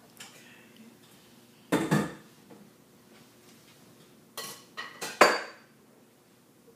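Kitchenware clattering: a pair of knocks about two seconds in, then a quick run of four metallic clinks with a brief ring a little past the middle, the last one the loudest.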